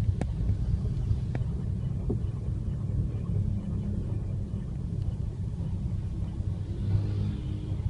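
Ford Fiesta Mk7.5 EcoBoost running, heard as a steady low rumble, with a few light ticks in the first couple of seconds.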